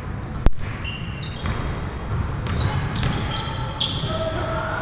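Basketball game on a hardwood court: sneakers squeak in many short, high chirps, and one sharp ball bounce about half a second in is the loudest sound, over the low din of a large gym.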